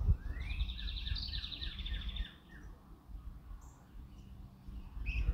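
A songbird singing one short song: a rising note, then a quick run of about eight repeated notes, over a low rumble that fades out about two seconds in.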